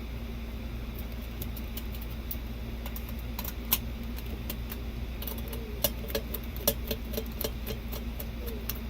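Irregular light clicks and taps of small metal and plastic parts being handled while a replacement motor is fitted into a bathroom exhaust fan housing, thicker in the second half, over a steady low hum.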